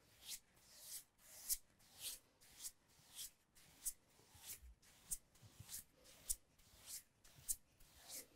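Wide flat brush swept over a sheet of backing paper in short, even strokes, just under two a second, each a soft dry swish. The brushing smooths the backing paper down onto the painting support.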